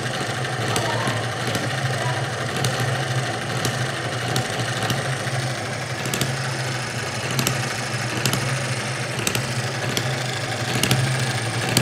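Model hit-and-miss engine running, sharp firing strokes coming at uneven intervals, roughly once a second, between coasting strokes, over a steady low hum.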